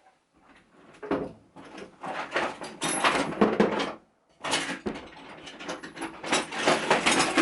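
Rummaging through a drawer of metal spanners and tools, the tools clattering and clinking, in two bouts with a short pause about four seconds in.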